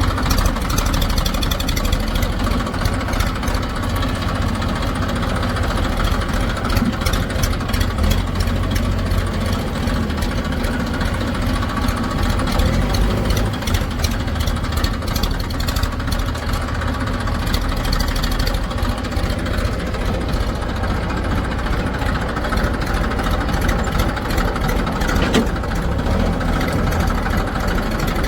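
Heavy diesel machinery running steadily: a low engine drone with a fast clatter over it, from a backhoe loader working beside a tractor-driven brick machine.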